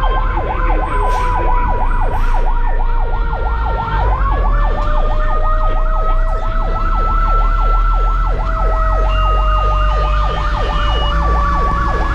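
Fire engine siren sounding a fast yelp, heard from inside the truck's cab, with the engine rumbling underneath. A steady tone runs alongside the yelp and steps up in pitch about four seconds in.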